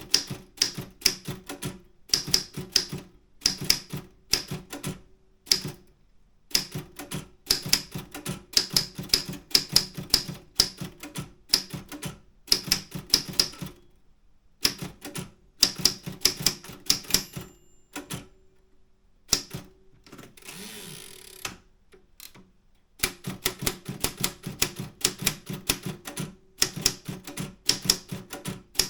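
Optima M10 manual typewriter being typed on: runs of sharp, fast key strikes broken by short pauses. About two-thirds of the way through the typing stops, and for about two seconds there is a rasping slide, the carriage being returned for a new line.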